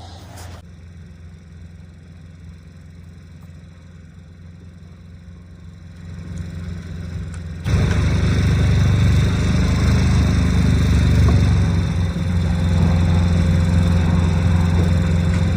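A motor running with a steady low hum that jumps sharply louder about eight seconds in, as if throttled up, and stays there.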